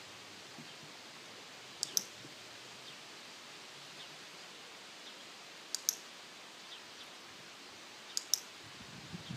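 Dog-training clicker pressed three times, each time a sharp double click as it is pressed and released, marking the dog's correct position on the ground target.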